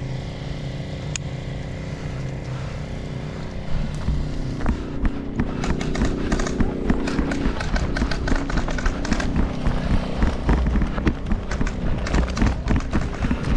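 A steady low hum runs throughout. From about four seconds in, quick irregular footfalls and rattling gear begin, as of an airsoft player moving on foot.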